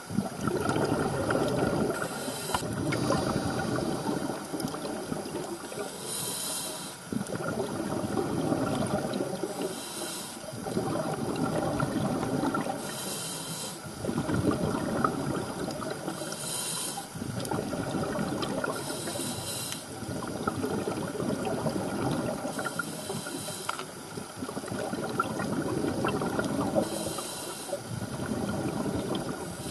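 A scuba diver breathing through a regulator underwater: a short hissing inhalation about every three to four seconds, each followed by a longer rush of exhaled bubbles.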